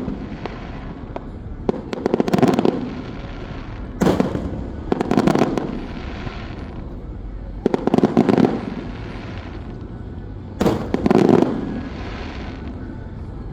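Aerial fireworks bursting about five times, a few seconds apart. Each starts with a sudden bang and trails off over about a second.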